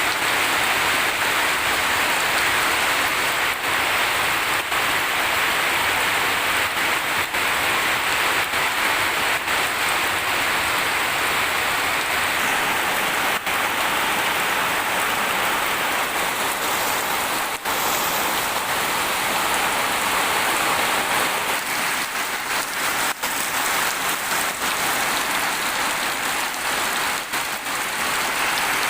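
Steady rain falling hard: a dense, even hiss of rain on surfaces, with a few drips standing out now and then.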